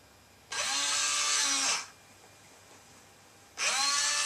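The EZ:1 robot's electric claw motor whirring twice, the pitch rising as it starts and falling as it stops. The first run is about a second long, starting about half a second in. The second starts near the end. The claw is opening to release the remote control and then closing again.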